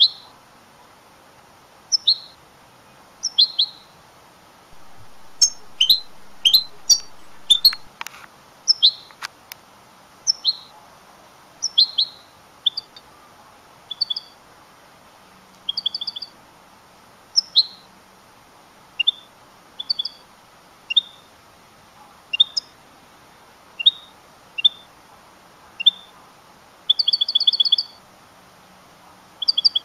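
White-mutation European goldfinch calling: short, sharp high notes every second or two, breaking into quick stuttered runs of notes near the end. A few sharp clicks come in the first third.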